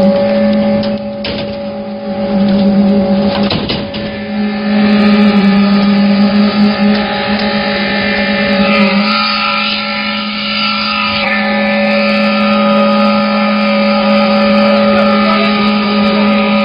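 Concrete mixer pump machine running with a steady, even drone, with a few knocks in the first few seconds.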